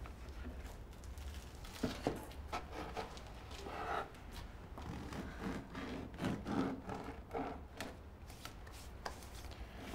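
Knife sawing slices off a loaf of bread on a wooden cutting board: uneven rasping strokes with a few light knocks on the board.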